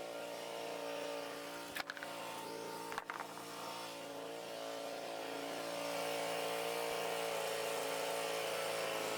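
Small engine running steadily at an even speed, with two light knocks about two and three seconds in.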